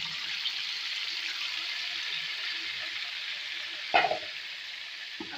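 Chicken pieces in a yogurt marinade sizzling in hot oil in a metal pot, a steady frying hiss. A single knock sounds about four seconds in.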